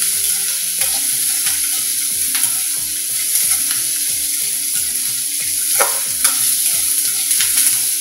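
Sliced onions, garlic, green chillies and curry leaves sizzling in hot oil in an aluminium kadai as they are sautéed towards browning, stirred with a spatula. A couple of sharper scrapes of the spatula on the pan come about six seconds in.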